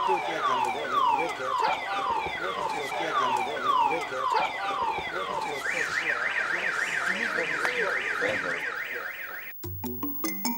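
Electronic alarm siren sounding a repeated falling whoop about twice a second, then switching about halfway to a faster up-and-down warble. It cuts off suddenly near the end and music with drum beats begins.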